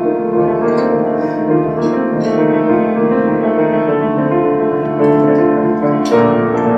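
Solo piano playing an interlude of sustained chords, with a new chord struck about six seconds in.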